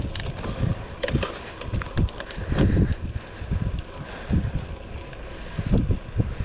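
Wind buffeting the chest-mounted action camera's microphone as the road bike rolls along, in uneven low gusts, with a few light ticks.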